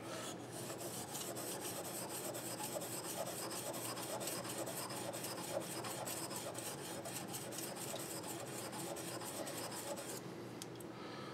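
Small steel scratch-stock cutter blade rubbed back and forth on an oiled Washita stone: a steady run of quick, faint scraping strokes that eases off about ten seconds in. The stroking smooths the blade's faces, taking off the burr left by filing and any pitting or rust.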